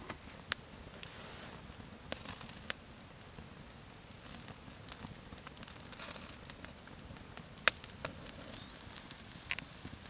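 Small wood campfire crackling over a light hiss, with several scattered sharp pops, the loudest about three-quarters of the way through.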